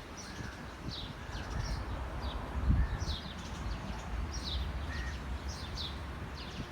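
Small birds chirping: short, high, downward-slurred notes about twice a second, with a few softer, lower calls among them. A low rumble runs underneath and swells briefly almost three seconds in.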